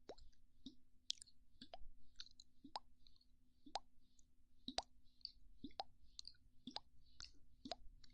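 Faint mouth pops close to the microphone, about one a second, each a short wet 'bo' pop, with softer small mouth clicks between them.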